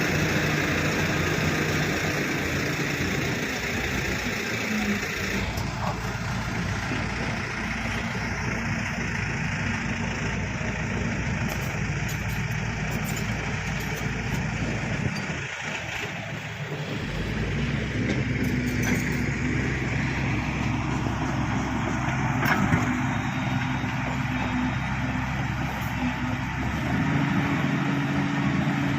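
Bulldozer's diesel engine running under changing load, its pitch shifting as it works and dropping briefly about halfway before picking up again, with a few sharp clicks.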